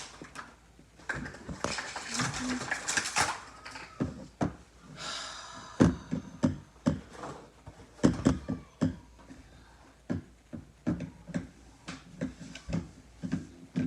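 Irregular knocks, taps and clatter of things being handled, with brief bits of voice among them.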